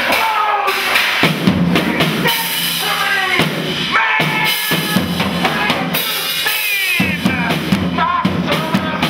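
Music track with a driving drum-kit beat, bass drum and snare, under a melodic line.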